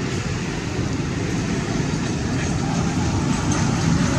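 A motor vehicle's engine running steadily with a low rumble, growing a little louder near the end.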